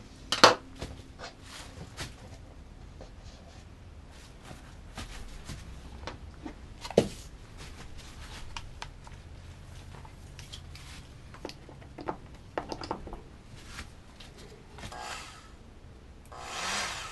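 Tools being handled on a workbench: scattered clicks and knocks as things are picked up and set down, with a sharp knock about seven seconds in and a short rush of noise near the end. No power tool is running.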